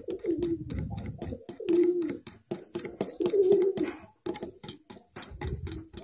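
A metal spoon clicking and scraping rapidly against a plastic bowl as a thick liquid mixture is stirred, while a dove coos about four times.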